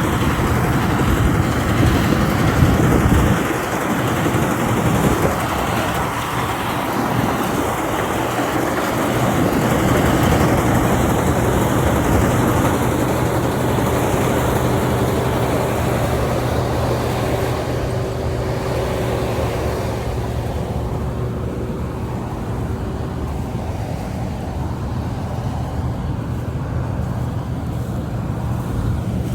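Engine of rice-harvesting machinery running steadily with a low hum. It grows duller and a little quieter about two-thirds of the way through.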